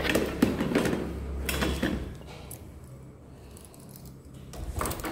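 Handling noises: several sharp clicks and light knocks, over a low steady hum that fades after about two seconds, with a short rumble near the end.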